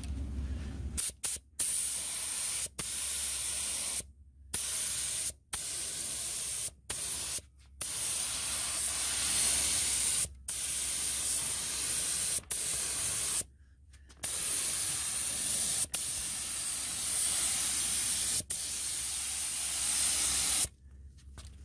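Air spray gun spraying epoxy primer, a steady hiss of air and paint in about nine bursts with short gaps between them as the trigger is let off and pulled again. The last burst, the longest, runs about six seconds and stops near the end. The gun is turned down low with a tight fan pattern.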